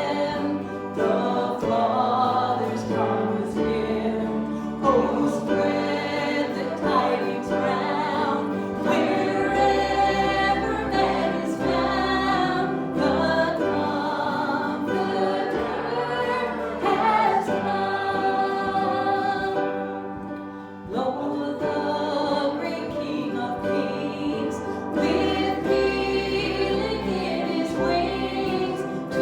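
Group of voices singing a worship song over instrumental accompaniment with held bass notes, with a brief drop in level about twenty seconds in.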